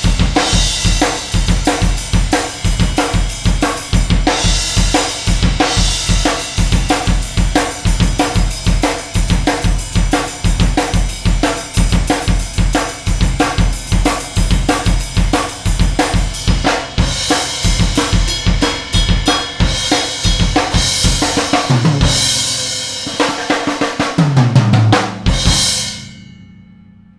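Acoustic drum kit played alone, with no other instruments: a steady rock beat of kick, snare, hi-hat and cymbals. Near the end comes a fill down the toms with cymbal crashes, and a last crash dies away quickly as the song ends.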